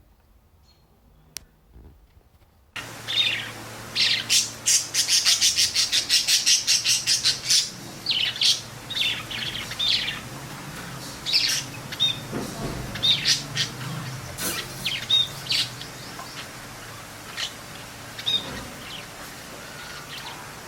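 Caged cockatiels chirping. After a near-silent opening, a fast run of sharp chirps starts about three seconds in, followed by scattered calls on and off.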